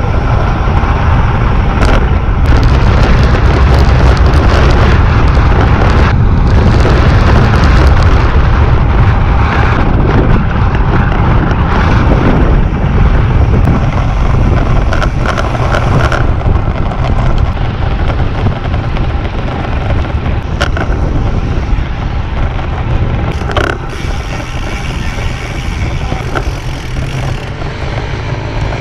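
Heavy wind buffeting on an action camera's microphone during a fast road-bike descent: a loud, continuous low rumble that eases somewhat near the end.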